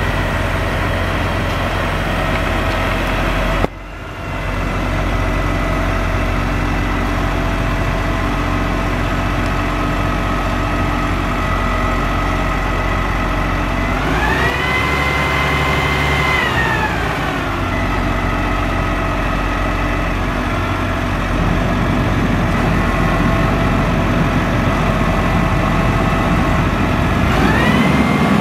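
Diesel engine of a 2007 Peterbilt 340 crane truck running steadily while the crane's boom is worked. It revs up about halfway through, holds for a couple of seconds, drops back, then revs up again near the end. The level dips sharply for a moment about four seconds in.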